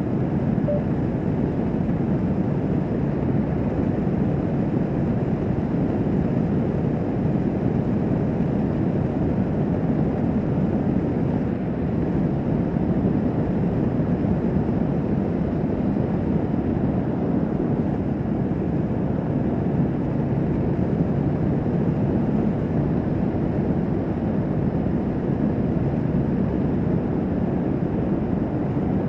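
Kawasaki Vulcan S 650 parallel-twin motorcycle cruising at a steady highway speed: a continuous rush of wind on the microphone with the engine and road noise underneath, unchanging throughout.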